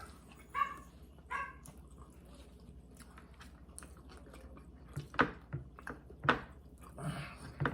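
Eating sounds from people eating barbecue ribs: wet mouth smacks and sharp clicks, loudest about five and six seconds in, with two short high squeaky sounds in the first couple of seconds.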